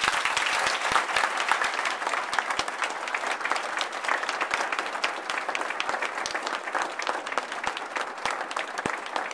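Audience applauding: a dense round of clapping that starts suddenly, is loudest in the first couple of seconds, and eases off a little.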